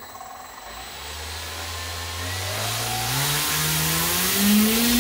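Brushless electric motor and propeller of a Volantex ASW28 RC glider spinning up under a slow throttle increase: a whine that climbs steadily in pitch and loudness for about four seconds, then holds level near the end. At this slow throttle-up the prop adapter grips the motor shaft normally, without the skipping that a fast throttle burst causes.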